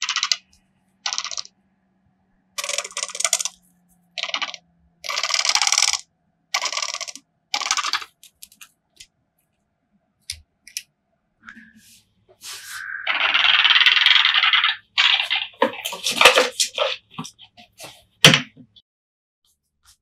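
Northern white-faced owl giving its rasping, rolling 'kyurururu' grumbling call: a string of short calls, then a longer one a little past halfway, with a few more short calls and a sharp click near the end.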